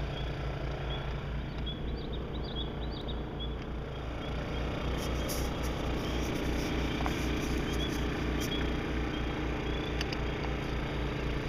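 A small engine running steadily with a low throbbing hum, a little louder from about four seconds in. Faint repeated high chirps sit over it.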